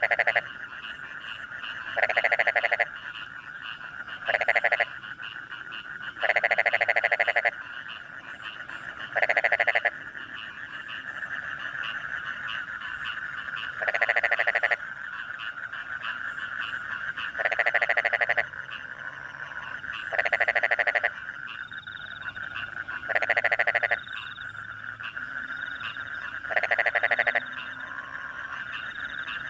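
Rice-paddy frogs calling after rain: loud, rasping pulsed croaks of about half a second to a second, nine or so at uneven gaps of 2 to 4 seconds, over a steady chorus of frogs and crickets.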